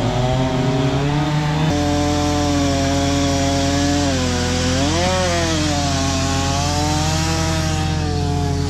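Chainsaw running at high revs while cutting spruce wood. The engine pitch sags about four seconds in, as under load in the cut, and revs back up a second later.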